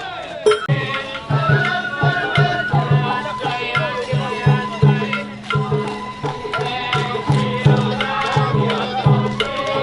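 Sawara-bayashi festival music played on a hauled float: taiko drums keep a steady, even beat under a wavering bamboo-flute melody.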